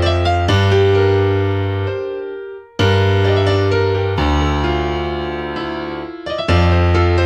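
Instrumental intro of a hip-hop beat with no vocals: sustained keyboard chords over a deep bass. The pattern repeats about every three and a half seconds and briefly drops out about two and a half seconds in.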